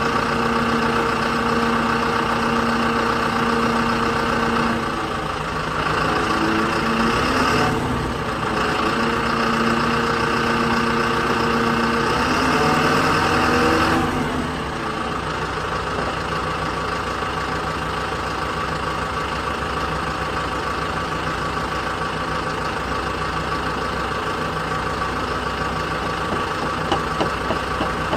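Diesel engine of a JCB backhoe loader working, its note dipping and rising as it takes load from about five seconds in, then settling into a steadier, slightly quieter run about halfway through. A few light knocks come near the end.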